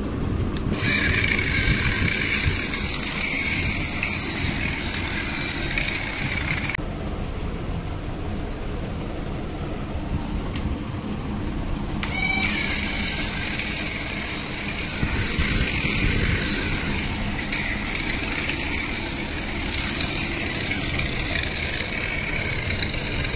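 Small DC motor of a homemade toy car whining steadily at a high pitch over a low rumble of the drive and wheels. The whine cuts out about seven seconds in, then spins up again with a short rising whine about twelve seconds in and runs on.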